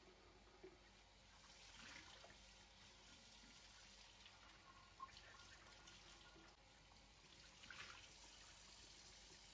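Faint water running from a tap into a sink, with a few light clicks.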